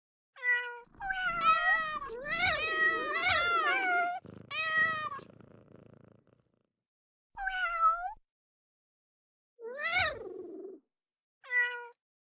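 A run of cat meows played as a sound effect from the phone: several quick, overlapping meows in the first few seconds, then single meows every two seconds or so, with dead silence between them.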